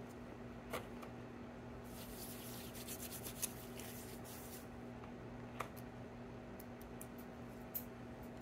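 Crinkling and rustling of a small plastic-and-paper sterile wrapper being peeled open and handled for a couple of seconds, with a few light clicks before and after. A steady low hum runs underneath.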